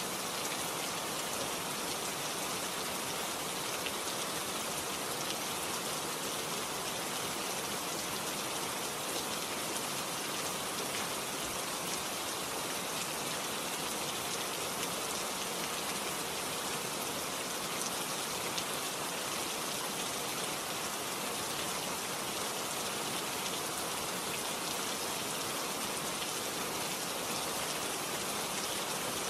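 Steady hiss with a fine, even crackle, like rain falling, holding at one level throughout.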